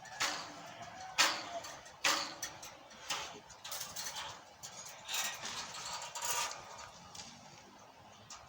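Irregular clicks and light knocks, about one a second, the sharpest about a second in.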